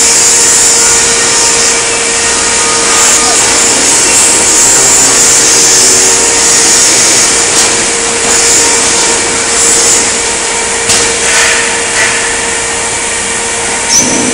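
Sheet-metal workshop machinery running steadily: a constant hum over a loud, even hiss, with a few knocks in the last few seconds.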